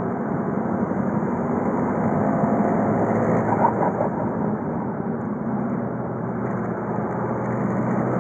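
VW Golf V's 2.0 TDI four-cylinder turbodiesel (BKD) running on the move, its steady note swelling and easing with the throttle. A short, sharper sound cuts through briefly about three and a half seconds in.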